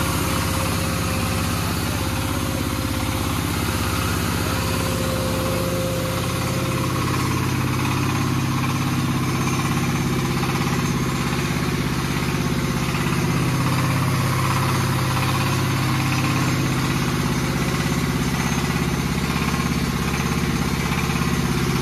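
Changfa single-cylinder diesel engine running steadily, belt-driving a 6N70 rice mill that is milling, the mill's whirring mixed in with the engine.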